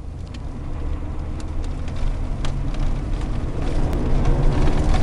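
GMC Sonoma pickup running with a low rumble that grows louder, with scattered sharp clicks and, from a few seconds in, a pitched drone that rises slightly as it speeds up. This is the unidentified noise the owner calls terrible.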